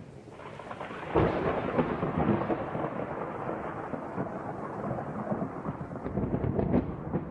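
Thunder rumbling and crackling over a hiss of rain, swelling sharply about a second in.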